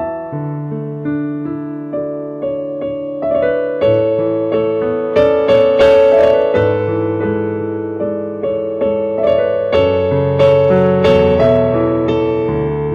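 Piano music: held chords and bass notes under a melody of single struck notes, each note fading after it is struck, growing louder around the middle.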